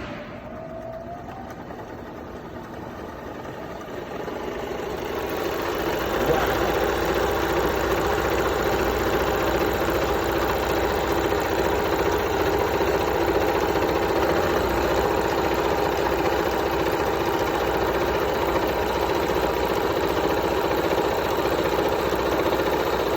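Sewing machine running at speed, stitching fabric: a steady mechanical whirr that builds over the first few seconds, then holds steady.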